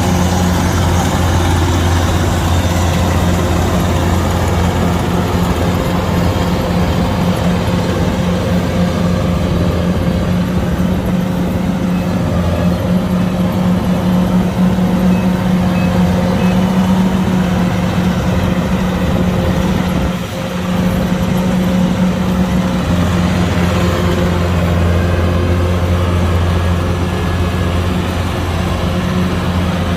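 Diesel engine of a Kubota DC-105X rice combine harvester, running steadily under load with a strong low hum. Loudness dips briefly about twenty seconds in.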